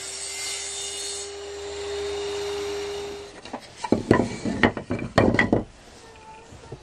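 A table saw running as it cuts a mitre through a wooden moulding strip, the brighter cutting noise easing off about a second in while the motor runs on steadily. About three and a half seconds in the saw stops and several cut wooden strips clatter with sharp, irregular knocks as they are handled and laid down on a wooden workbench.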